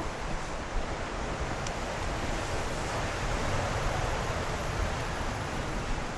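Steady rush of surf, with a low rumble of wind on the microphone.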